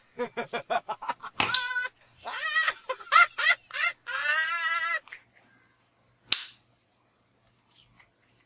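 A high-pitched voice: a quick run of short notes, about seven a second, then a held note, a few gliding calls and one long wavering call. Followed by a single sharp click.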